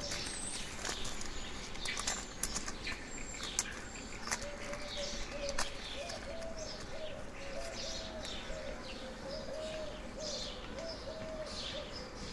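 Wild birds chirping, with many short falling chirps throughout and a few sharp clicks. A low, slightly wavering note starts about four seconds in and carries on until near the end.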